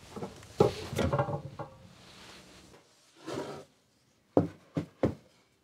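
A book press being opened and a pressed stack of paper lifted out: wooden rubbing and scraping, then three sharp knocks in quick succession near the end.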